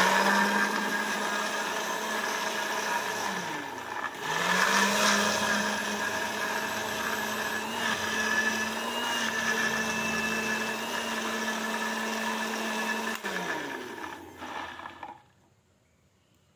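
Small press-to-run personal blender motor whirring as it grinds chilies, shallots, garlic, candlenuts and dried shrimp with a little water into a spice paste. It winds down briefly about three seconds in, spins back up, and runs steadily until it winds down near the end.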